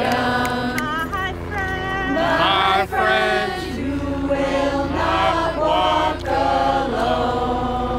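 Voices singing a slow, chant-like melody in long held notes that glide between pitches, over a low steady rumble.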